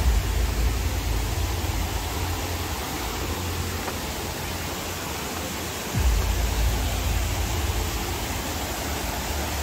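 Rushing stream water, a steady noise, with a heavy low rumble on the microphone that starts abruptly at the beginning and again about six seconds in.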